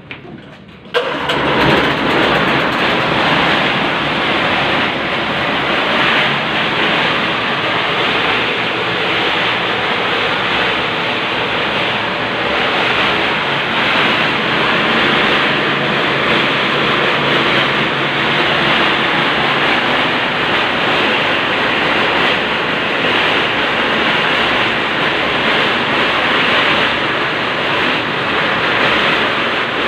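One-bagger concrete mixer switched on about a second in, then running steadily under test with an even, loud rumble.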